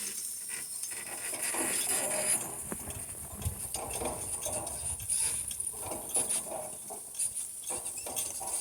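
A harnessed team of donkeys walking: irregular clinks of harness metal and soft hoof steps, over a steady high buzz of insects.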